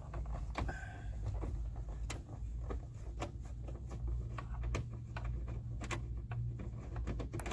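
Irregular light clicks and taps of hand tools and fingers working on a pickup's plastic door trim panel, with a sharper click near the end, over a steady low rumble.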